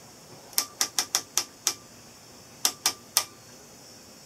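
Rotary sweep-speed (timebase) selector switch on a Telequipment D1011 oscilloscope being turned through its detents. It gives sharp clicks: six in quick succession, a pause of about a second, then three more.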